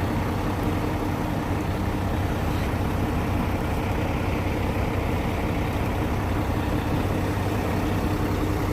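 Heavy diesel truck engine idling steadily, a constant low drone that does not rise or fall.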